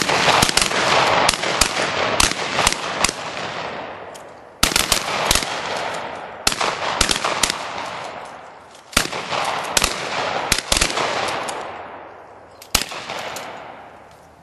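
Several shotguns firing at clay targets in five quick volleys of many shots each. Each volley dies away over a few seconds in a rolling echo.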